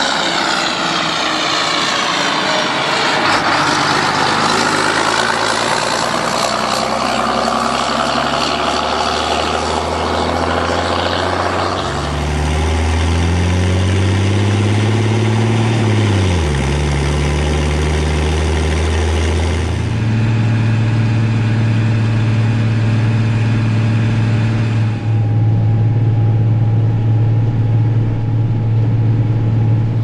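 John Deere tractor's six-cylinder diesel running through an open exhaust stack. It first goes by under load, then is heard close up from on board: the engine note climbs, falls sharply about sixteen seconds in, and settles into a steady low drone for the last ten seconds.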